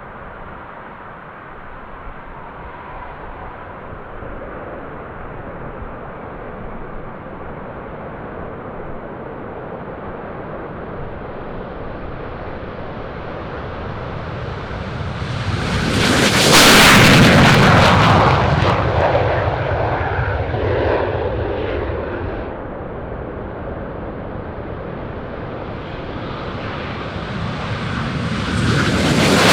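Northrop F-5 Tiger II fighter jets, twin J85 turbojets: jet noise builds to a loud pass about two-thirds of the way in and then fades with the pitch dropping. A second jet is building up loudly near the end.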